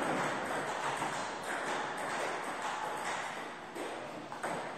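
Table tennis balls clicking: scattered light, sharp taps of balls on tables and paddles, over a steady background hiss.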